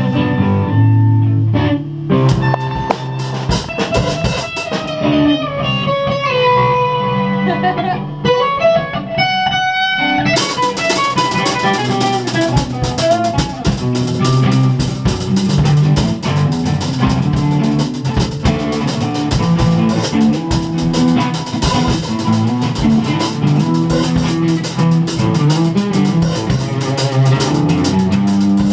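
A rock band playing at a sound check. A guitar plays single notes over drum hits, then about ten seconds in the full band comes in with cymbals and keeps playing.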